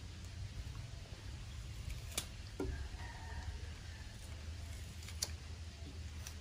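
A young macaque biting and chewing a crisp java apple (wax apple): two sharp crunches, about two and five seconds in, with a few fainter ones, over a low steady hum.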